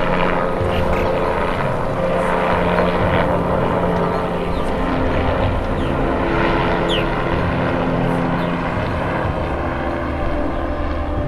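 Helicopter flying past overhead, its rotor and turbine engine running with a steady, even sound.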